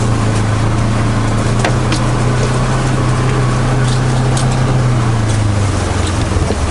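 Polaris Ranger UTV engine running steadily as it drives off-road over the forest floor, heard from the open cab, with scattered sharp clicks and snaps. The engine note drops slightly near the end as the vehicle eases off.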